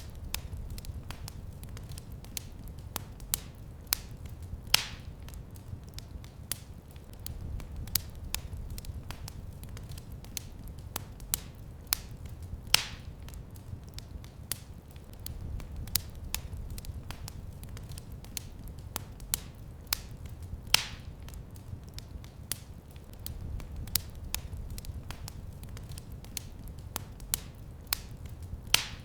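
Wood fire crackling in a fireplace: frequent small snaps and clicks, with a louder pop about every eight seconds, over a low rumble of the flames that swells and fades.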